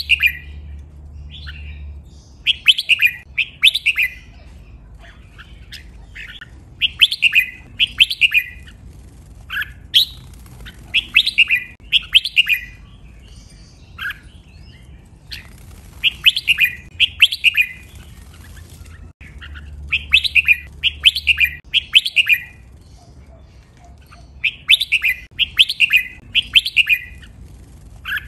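Red-whiskered bulbul singing: quick runs of three to five bright whistled notes, each run coming every few seconds with short gaps between.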